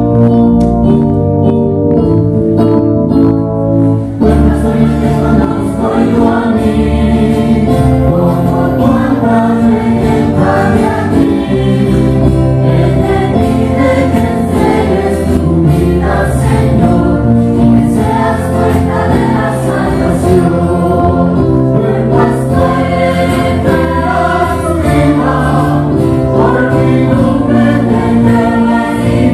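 Music: a choir singing a religious song over instrumental accompaniment, with the voices coming in about four seconds in.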